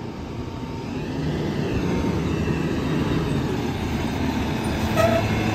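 Garbage truck's diesel engine running as the truck drives slowly toward the listener, growing louder over the first couple of seconds. A short, high squeal sounds about five seconds in.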